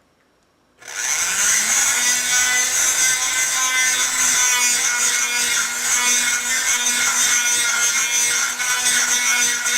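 Dremel rotary tool switching on about a second in, its motor spinning up and then running steadily at high speed as it sands out the inside of a 1/2 inch PVC pipe.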